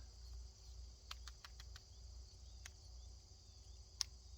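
Faint, steady chorus of crickets, with a few scattered sharp ticks, the loudest about four seconds in.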